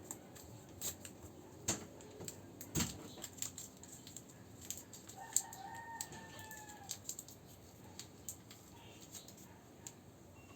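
Scattered light clicks and taps of hands handling a tablet and its screen protector, with a chicken giving one drawn-out call of about two seconds in the background, about five seconds in.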